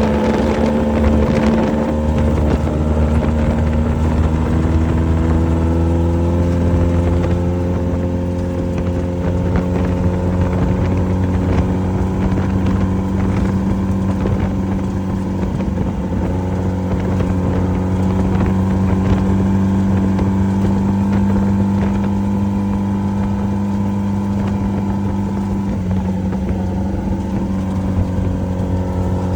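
Off-road race vehicle's engine running steadily at a held pitch, sagging a little over the first few seconds and dropping slightly about 26 seconds in, over constant noisy rattle and knocks.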